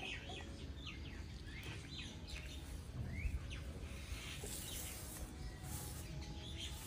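Faint scattered chirps of small birds, short high notes that slide up or down, a few a second at times, over a low steady background hum.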